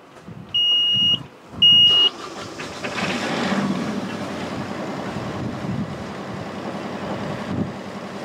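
Two short beeps from the engine panel's alarm buzzer, then a Yanmar 40 hp marine diesel engine cranks, catches and runs at a steady idle. This is the first start after fresh fuel filters and bleeding air out of the fuel lines.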